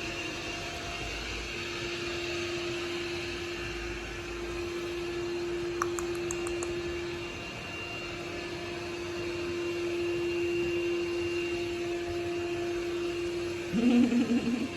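Robot vacuum cleaner running with a steady hum and whir, a few faint clicks about six seconds in. A brief voice sound near the end.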